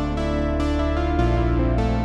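Roland Juno-X synthesizer played on its keyboard: chords and short notes in an electric-piano-like tone over a held bass, with the bass note changing about a second in.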